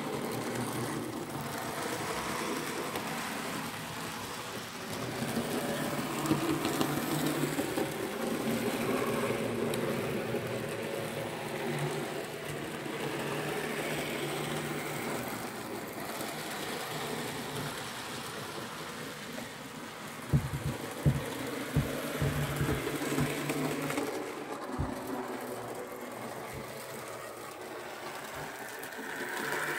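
N gauge model train running on the layout's track: a steady small-motor hum with wheel noise, and a run of sharp clicks about two-thirds of the way through.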